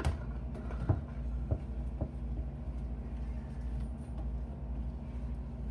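Steady low mechanical hum, with a few short knocks in the first two seconds.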